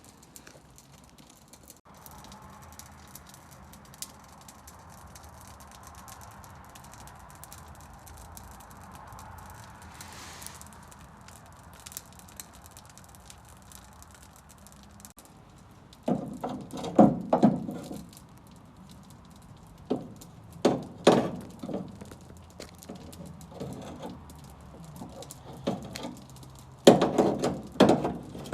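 Hand tools and metal car parts knocking and clunking in irregular clusters during the second half, while the old rear leaf-spring bushings and bolts are worked out. Before that there is only a low steady hum.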